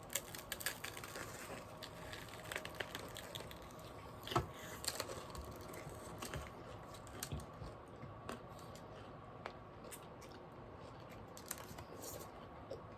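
Chewing and crunching on a pickle wrapped in a fruit roll-up: faint, scattered crunches and small mouth clicks, with one sharper crunch a little before halfway.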